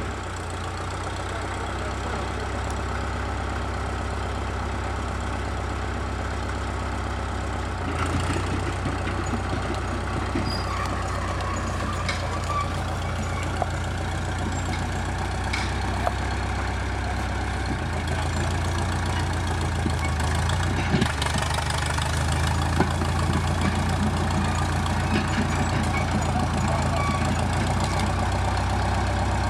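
Small Caterpillar crawler dozer's engine running steadily, its note stepping up about a quarter of the way in and again a little past halfway, with a few sharp clanks.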